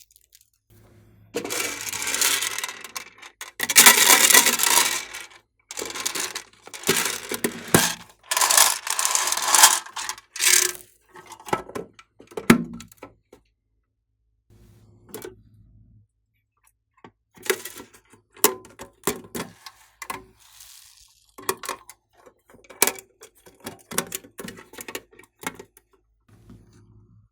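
Slime being squished and worked by hand, giving dense crackling and popping bursts for about the first half, then after a short lull a run of sharp separate clicks and pops.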